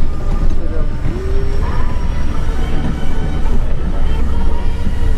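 MAZ truck tractor's diesel engine running under way, heard from inside the cab as a steady low rumble with road noise.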